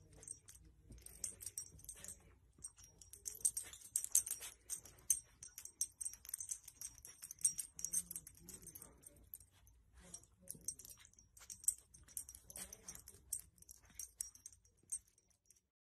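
Faint, irregular light metallic jingling and soft rustling as a dog noses and tugs a blanket, its collar tags clinking with each movement.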